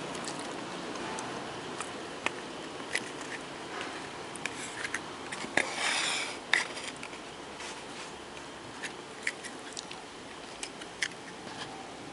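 Scattered small clicks and taps of tools and a circuit board being handled on a workbench, with one short scrape about halfway through, over a steady background hiss.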